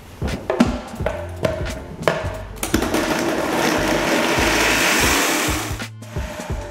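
Vitamix blender running at speed for about three seconds, blending soaked cashews and water into a smooth cream; it starts about halfway through and stops abruptly near the end, with background music.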